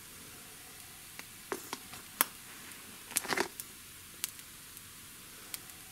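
Ground beef and mushrooms sizzling quietly in a hot cast iron pan: a faint steady hiss with scattered crackling pops.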